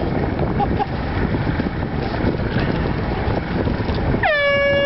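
Wind buffeting the microphone in a steady rumble. Near the end, a short pitched tone slides down and holds for about half a second.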